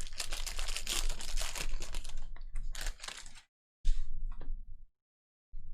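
Trading cards and foil pack wrappers being handled, with rapid clicking and rustling for about three and a half seconds and a shorter burst a little later.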